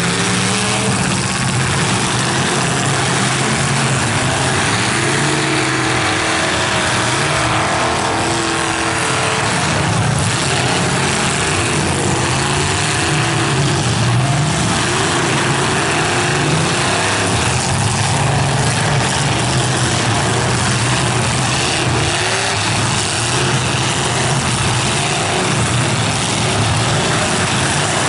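Several full-size demolition derby cars' engines revving hard at once, their pitch rising and falling as the cars push, spin their tyres in the dirt and ram each other.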